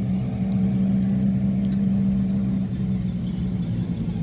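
Motorcycle engines running with a steady low drone.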